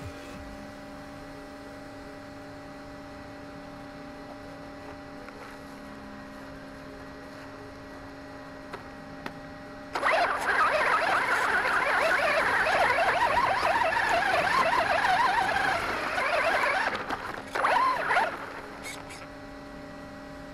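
Onboard sound of an electric RC monster truck. While it sits still there is a steady electrical hum. About halfway through, a sudden loud, rough motor-and-drivetrain whine with tyre and wind noise starts as it drives off over grass, wavering with the throttle for about seven seconds. It stops, then a short burst follows about a second later.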